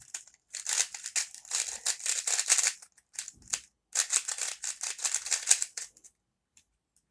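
A Rubik's Speed cube being turned quickly by hand: rapid plastic clicking and clacking of the layers, in two spells of about two seconds each.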